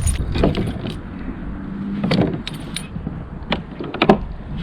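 Scattered sharp metallic clinks and rattles of fishing tackle as a just-hooked pickerel is handled in the kayak, over a steady low rumble.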